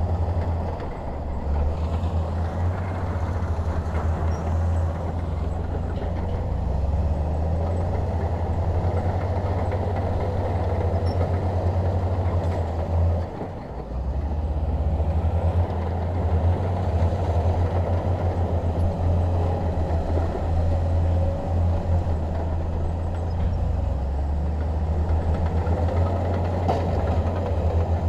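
Bulldozer's diesel engine running steadily under load with a deep drone, easing briefly about halfway through.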